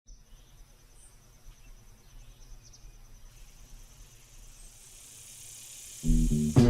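Faint outdoor ambience with insects, crickets by the sound of it, keeping up a steady high trill. About six seconds in, loud music with a bass line cuts in.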